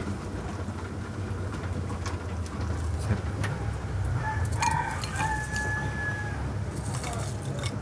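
A rooster crows once, starting about four seconds in: a couple of short notes, then a long held note lasting about a second. Under it runs a steady low rumble with a few light clicks.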